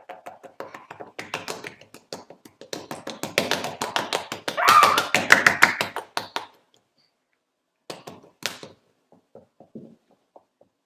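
Rapid tapping and clicking, made by hand as home-made sound effects for a cartoon, dense for the first six seconds or so and loudest near the middle. A short cluster of taps follows about eight seconds in, then a few scattered light taps.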